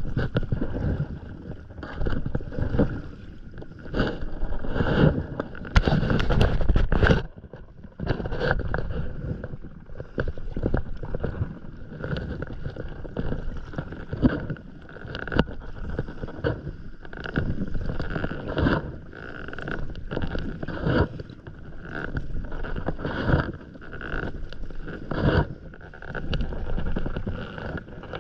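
Stand-up paddle strokes on an inflatable paddleboard: the blade splashing and water rushing along the board, swelling about every two seconds, with wind on the microphone. A louder rush of noise about six seconds in stops abruptly.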